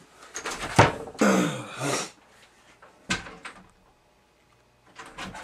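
A man's wordless groan and heavy breathing, from frustration, then a short noisy burst about three seconds in.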